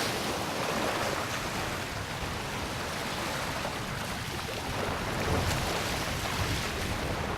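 Ocean surf on a sandy beach: waves breaking and washing up the sand in a steady rush, swelling slightly about five seconds in.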